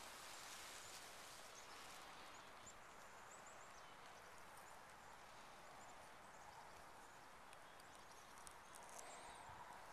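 Near silence: faint outdoor ambience with a few faint high chirps.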